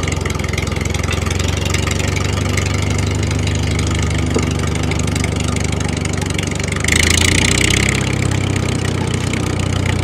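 Steady engine-like running with a low, rapid chug. About seven seconds in, a hiss grows louder for about a second.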